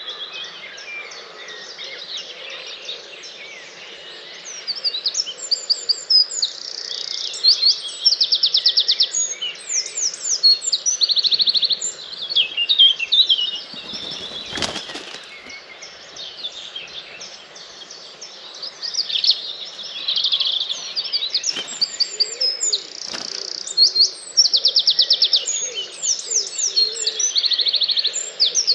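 A dawn chorus of many songbirds singing at once, with overlapping chirps, whistled phrases and fast trills. A brief low knock comes about halfway through.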